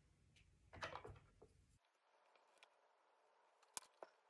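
Near silence: faint room tone, with a brief soft noise about a second in and two faint clicks near the end.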